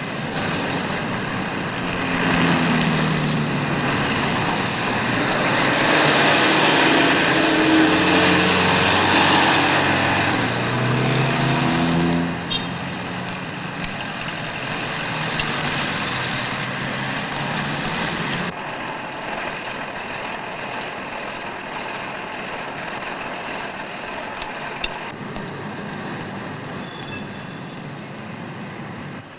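Dense city street traffic: vehicle engines rising and falling in pitch as they pass, loudest in the first dozen seconds, then a lower, steady traffic noise with a short high tone near the end.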